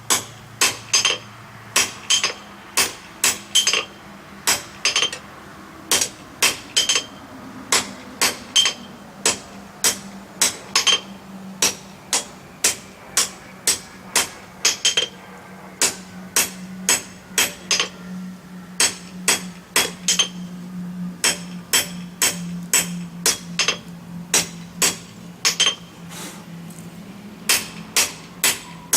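Hammer blows on hot steel over an anvil, about two ringing strikes a second, while forge-welding and blending tong reins. The striking pauses briefly twice in the last third, and a low steady hum runs underneath.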